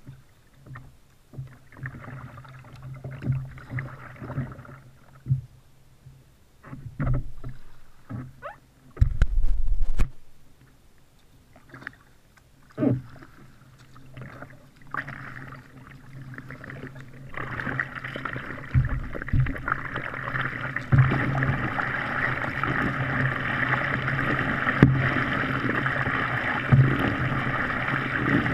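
Kayak paddling: paddle blades dipping with splashes, drips and occasional knocks against the kayak, and a loud low thump about nine seconds in. In the second half a steady rush of water along the hull, with a paddle stroke every second or two.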